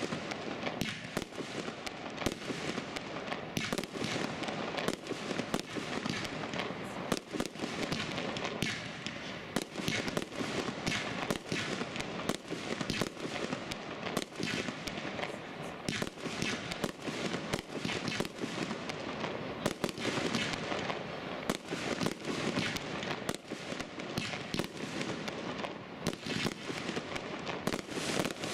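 Aerial fireworks display: a dense, unbroken string of bangs from shells bursting overhead, several a second.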